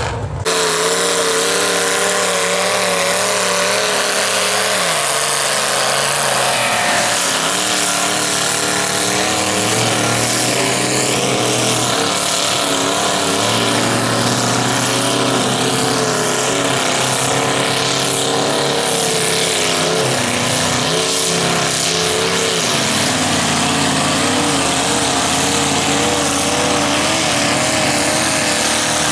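Engines of lifted, home-built mud trucks running hard through a mud pit, their pitch rising and falling with throttle and wheel spin.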